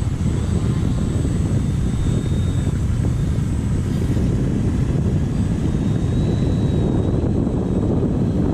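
Wind buffeting the microphone, with the faint whine of an RC floatplane's electric motor and propeller coming up twice, as short bursts of throttle.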